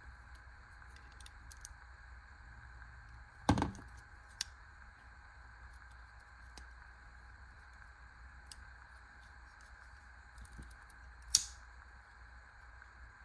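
Clicks from a cheap stainless folding pocket knife being handled, its lock reported broken: two sharp clicks about eight seconds apart, with a few fainter ticks between them, over a faint steady hum.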